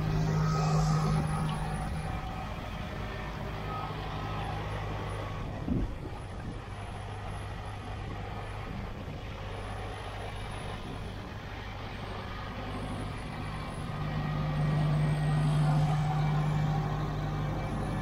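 Deutz-Fahr tractor's diesel engine running steadily under load while it pulls a working Grimme SE 75-55 single-row potato harvester, with a steady low hum. The sound swells at the start and again about two thirds through as the machines pass close, and there is one short knock just before six seconds in.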